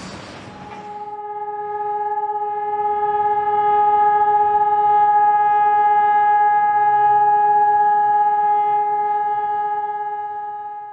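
Machinery noise from the site fades out within the first second. One steady held tone with overtones then swells in, holds at a single unchanging pitch, and fades away near the end, as an added outro tone over a black end screen.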